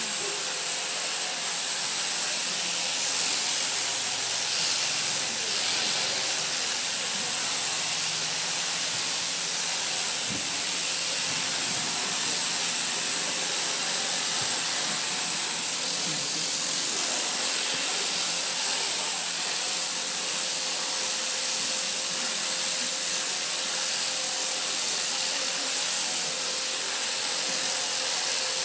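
Electric sheep-shearing handpiece running steadily as it clips through a fleece: an even, hissing buzz with a faint steady hum in it.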